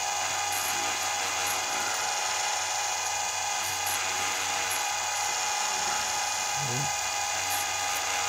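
Electric chainsaw chain sharpener running at a steady speed, its grinding wheel giving a steady motor whine with a few faint ticks, while it grinds down the tops of the chain's rakers (depth gauges).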